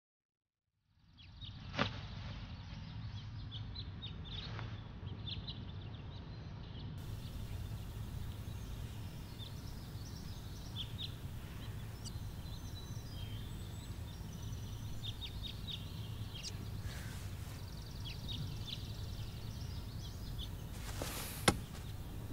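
Quiet background ambience: a steady low hum with small birds chirping throughout. There is a light click about two seconds in and a sharp knock near the end.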